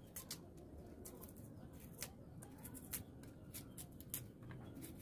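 Kitchen knife cutting and peeling the skin off a hard cassava root on a plastic cutting board: irregular short clicks and scrapes, about two a second.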